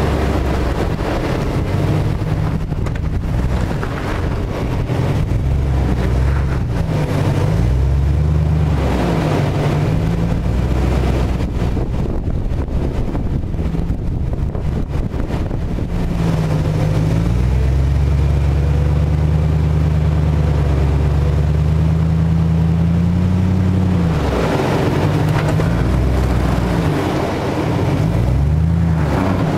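Jeep Grand Cherokee WJ's engine revving up and down under load as the 4x4 crawls over a steep ledge. It holds a steady higher speed for several seconds past the middle, then rises and falls again near the end.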